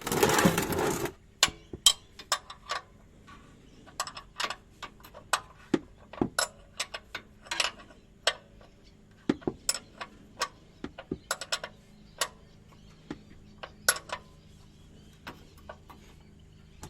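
A ratchet clicking in short, irregular runs as it works a tight oil-drain bolt out of the sump; the bolt stays tight all the way rather than running free by hand. A loud burst of noise about a second long comes at the very start.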